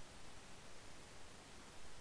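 Faint steady hiss of background noise, with no distinct sound standing out.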